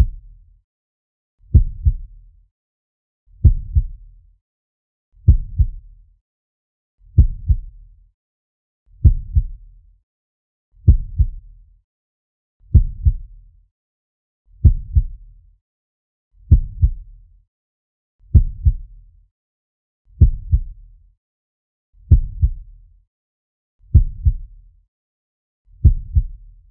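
Slow heartbeat sound effect: a steady, low lub-dub double thump about every 1.8 seconds, roughly 33 beats a minute, with silence between beats.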